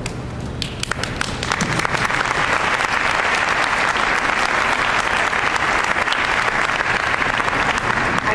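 Audience applauding. A few scattered claps build within about two seconds into steady applause.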